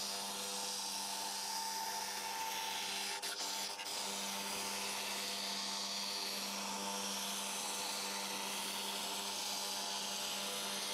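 CNC router spindle running a 1/8-inch end mill at 6000 rpm, cutting plywood: a steady whine over the hiss of the cut, with a brief dip about three to four seconds in.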